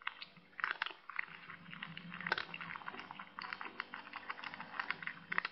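Dried plant stems crackling and clicking in quick, irregular snaps as a cat rolls on its back and plays with them.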